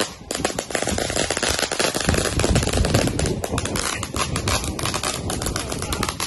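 A string of firecrackers going off in rapid, continuous crackling, loudest about halfway through.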